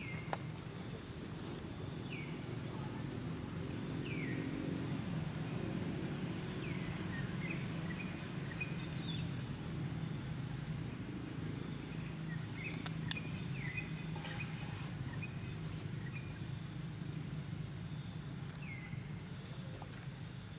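Outdoor ambience: a steady high insect drone over a low background rumble, with short falling chirps recurring every second or two.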